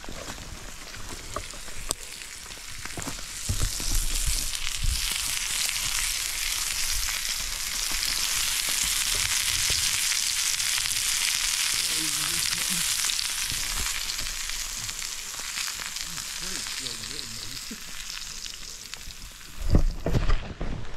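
Steak sizzling over a campfire: a steady frying hiss with fine crackle that swells in the middle, with a couple of knocks near the end.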